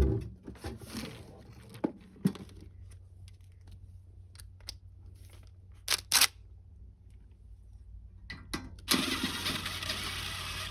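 Metal parts and tools clicking and knocking on the heater casing, with two sharp knocks about six seconds in. About nine seconds in, a cordless impact driver runs for a couple of seconds, undoing one of the heater's fastenings.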